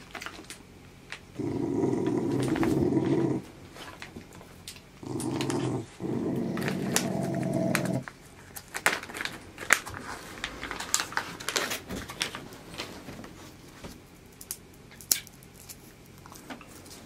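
Kai Ken dog growling low in two long stretches of about two seconds each, then quieter crinkling and small clicks.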